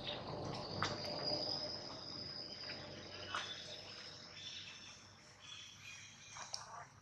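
Steady high-pitched insect trill, with a few soft clicks or rustles over it.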